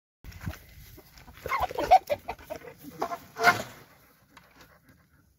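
Chickens clucking, with louder calls about two seconds in and again about three and a half seconds in.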